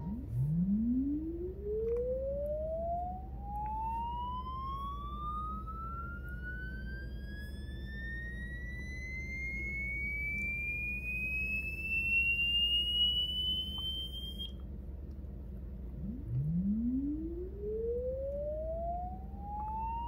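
A single pure electronic test tone, a 'mosquito sound', sweeping slowly and steadily upward in pitch from a low hum to a high whistle and cutting off suddenly about 14 seconds in. A second identical sweep starts again from low about two seconds later, played for a dog to react to.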